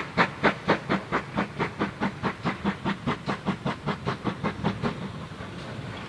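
GWR Small Prairie tank engine No. 5541 working hard, its exhaust giving a sharp, even bark at about four beats a second. The beats stop about five seconds in, leaving a faint steady hiss.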